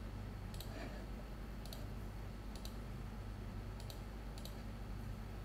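Computer mouse button clicking: about six separate sharp clicks roughly a second apart, several of them a quick double press-and-release, placing the points of a polygon selection. A steady low hum runs underneath.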